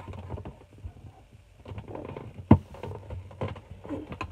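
Hands handling a cardboard toy box: irregular taps, scrapes and rustles, with one sharper knock about two and a half seconds in.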